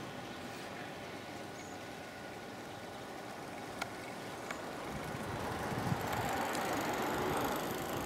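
Steady outdoor background rumble and hiss, growing louder over the second half, with two faint clicks a little before halfway.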